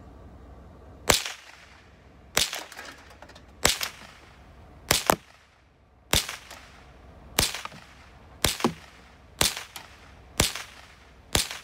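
A Winchester Model 74 semi-automatic .22 LR rifle fires ten shots in steady succession, about one a second, each a sharp crack with a short ringing tail. The action cycles and feeds each round without a further jam.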